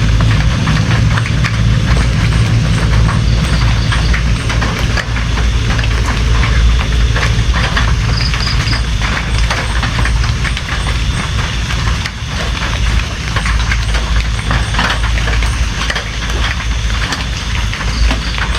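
Steady rain, with many separate drop hits over a constant low rumble.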